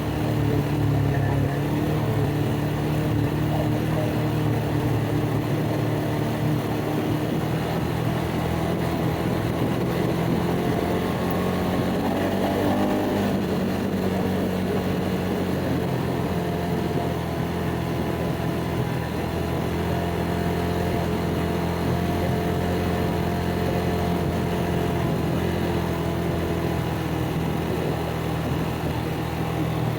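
ATV engine running steadily while riding, its note wavering and shifting pitch in the middle of the stretch before settling again.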